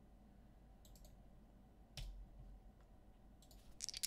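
Near silence with a couple of faint single clicks, then a quick, irregular rattle of clicks starting near the end as dice are shaken and rolled.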